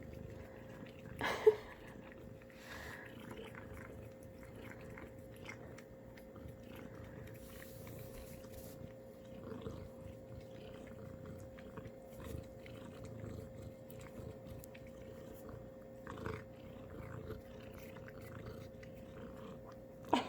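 A cat licking and chewing a treat, soft faint wet smacks and ticks, over a steady hum. A single sharp knock about a second and a half in.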